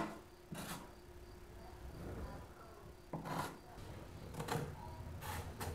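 A few faint, short scuffs and taps with quiet between them: a felt-tip marker marking an outlet spot on a wooden wall stud, and hands on the framing.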